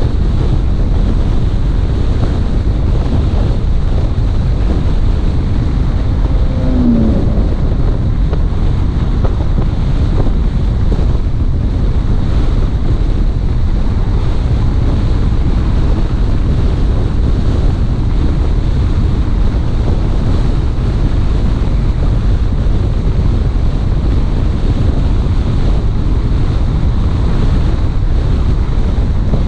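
Steady rumble of wind buffeting the microphone, mixed with road noise from a car driving along at speed. A short faint squeak comes about seven seconds in.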